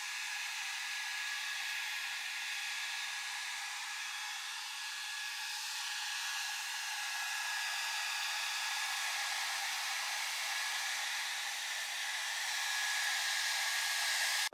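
Hand-held hair dryer running steadily, a constant rush of blown air with a thin steady high tone in it, aimed at vinyl wrap to soften it.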